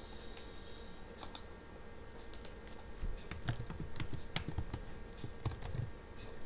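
Computer keyboard typing: scattered key clicks, coming quicker from about halfway through as a command is typed.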